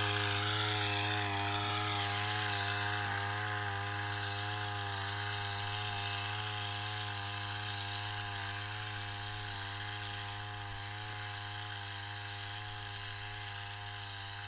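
Petrol-engine backpack power sprayer running steadily at a fairly constant pitch, with a slight waver, as it blows a mist of pesticide over a soybean crop. It slowly gets quieter as the operator walks away through the field.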